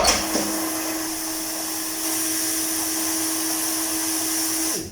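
Hot-air heat gun blowing steadily with a steady hum, desoldering a failed (open) LED from an LED TV backlight strip. It starts suddenly and cuts off near the end.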